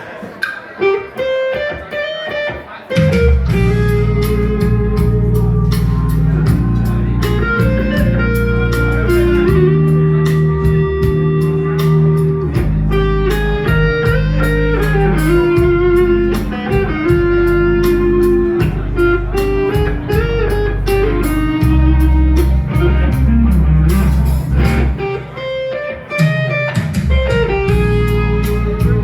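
A band playing guitar-led music: a sparse opening, then about three seconds in the full band comes in with a heavy bass line and a steady beat.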